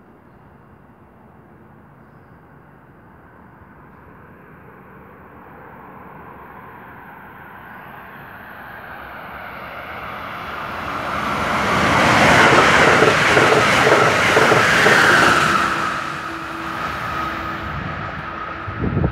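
Amtrak Keystone push-pull train passing through the station at speed, with a Metroliner cab car leading and an ACS-64 electric locomotive pushing at the rear: a rush of wheels on rail that builds slowly as it approaches, peaks with clattering wheels as it passes, then eases off. A steady whine comes in near the end as the rear of the train goes by.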